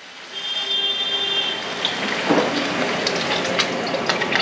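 Water poured steadily from a bottle into a hot frying pan of sautéed vegetables, splashing as the pan fills.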